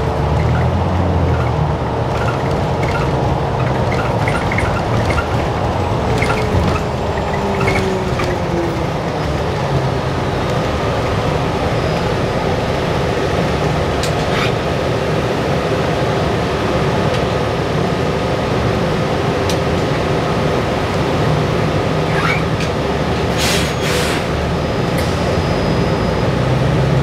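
Inside a 2022 New Flyer XDE60 diesel-electric hybrid articulated bus under way: steady drive and road noise with rattles, and a whine that falls in pitch about six to nine seconds in. A few sharp clicks come near the end.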